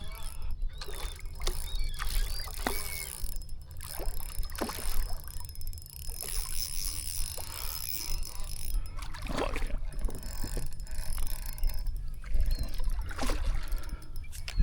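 Water splashing and lapping around a kayak, with scattered knocks on the hull, over a steady rumble of wind on the microphone.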